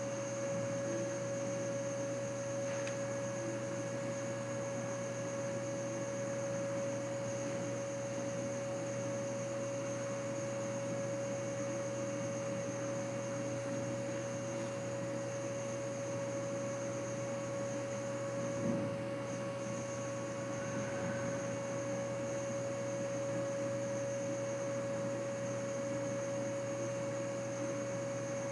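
Steady hum with a constant mid-pitched tone over it, unchanging throughout, and one faint short knock about two-thirds of the way through.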